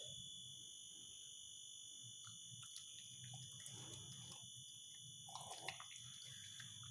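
Faint chewing and licking of a Shih Tzu eating rice and carrot off a tiled floor: soft wet clicks and smacks, with one sharper smack late on. A steady high-pitched whine runs underneath.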